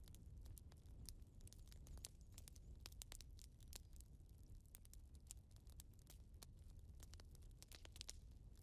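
Near silence: faint, irregular crackling clicks over a low hum.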